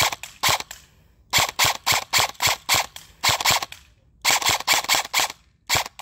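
Battery-powered Noveske Space Invader airsoft rifle firing on semi-automatic: quick single shots about four a second, in runs of four to eight with short pauses between runs.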